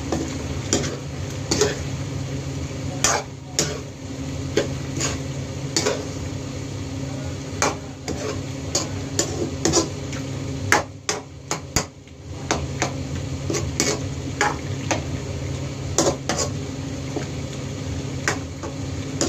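Metal spoon clinking and scraping against a frying pan as cooked squid in sauce is stirred: irregular knocks, roughly one every second or so, over a steady low hum.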